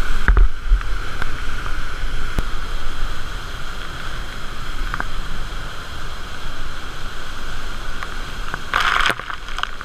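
Loud, steady roar of a big waterfall crashing into whitewater, heard up close on a helmet-mounted action camera, with a deep low rumble and a few faint knocks. A short, louder burst of noise comes near the end.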